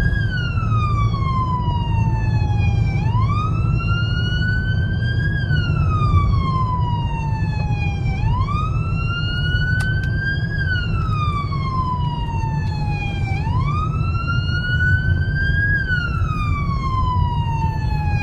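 Emergency siren wailing, its pitch climbing quickly and then sliding slowly down in cycles of about five seconds, over a steady low vehicle rumble.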